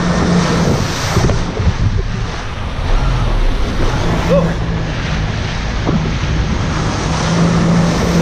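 1100cc jet ski running at speed: a steady engine drone under the rush of wake spray and heavy wind buffeting on the microphone.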